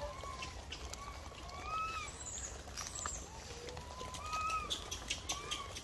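Several macaques giving short arched coo calls that rise and fall in pitch, a few a second and overlapping at different pitches, over light clicks.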